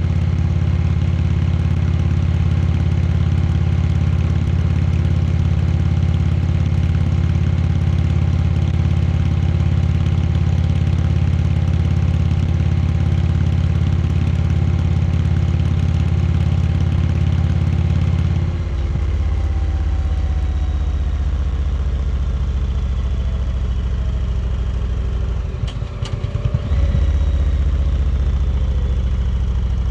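Indian Chieftain Dark Horse's V-twin engine running steadily. Its note changes suddenly about two-thirds of the way in, and shortly before the end there is a brief dip and wobble before it settles again.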